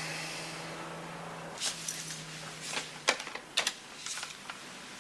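Scattered clicks and knocks of a desk telephone handset being picked up and a number dialled, over a faint steady low hum.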